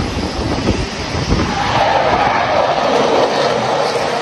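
Jet engine noise of a Dassault Rafale fighter approaching low over the sea, growing steadily louder from about a second and a half in. Wind buffets the microphone at the start.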